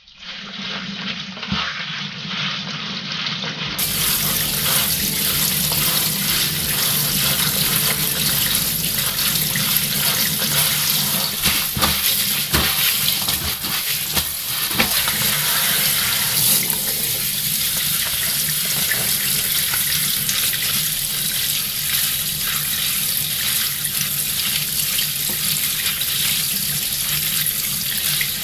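Kitchen tap running steadily into a stainless-steel sink while hands rub and rinse water spinach in a plastic colander, with small knocks of the handling.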